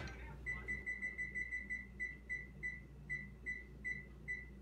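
Electric range's control-panel keypad beeping, one short high beep per button press, about fifteen in all, quick at first and then spacing out, as the oven is set to broil.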